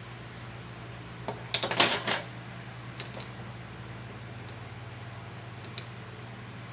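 Small metal repair tools and parts clicking and clattering on a work surface while a phone is taken apart. There is a quick cluster of clicks a little over a second in, two more about three seconds in and a single one near the end, over a steady low hum.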